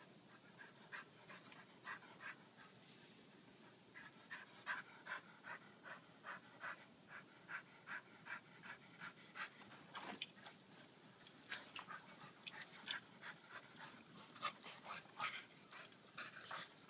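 A puppy panting quickly and faintly, about three breaths a second.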